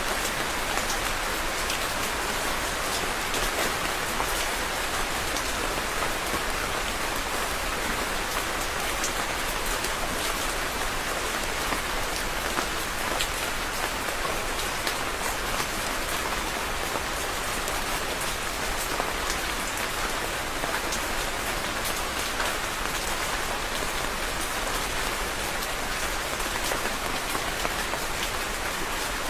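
Steady rain falling on a surface, an even hiss of many close drops with frequent small drop ticks, unchanging in strength.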